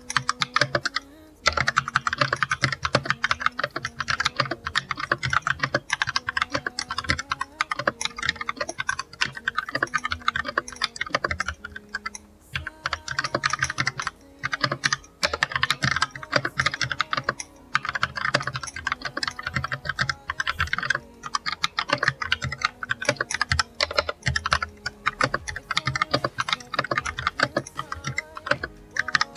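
Continuous fast typing on an Akko 3108 V2 DS Horizon mechanical keyboard: a dense run of key clicks with a few short pauses.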